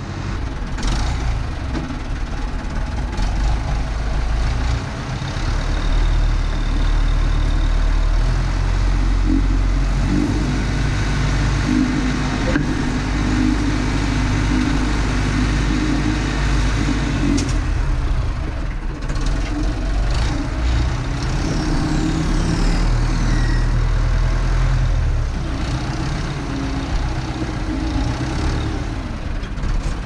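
Massey Ferguson MF50E backhoe's Perkins diesel engine running loud and steady, its pitch rising and falling with load as the machine works along a gravel driveway.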